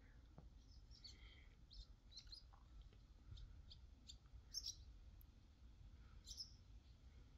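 Faint birdsong: scattered short, high chirps from small birds, over a quiet low background rumble.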